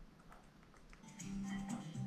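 Near silence with a few faint clicks, then quiet music with steady held notes starts about a second in.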